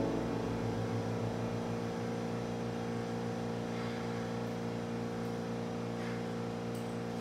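Background music: a held chord that rings on and slowly fades after a loud piano chord, with no new notes.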